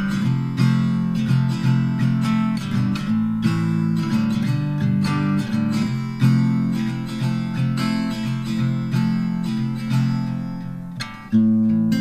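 Background music: a strummed acoustic guitar, dipping briefly near the end before coming back in.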